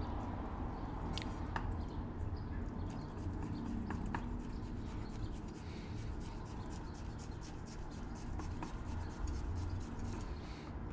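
Chef's knife chopping fresh basil on a wooden cutting board: a few scattered taps, then a quick, steady run of light knife taps on the board from about three seconds in.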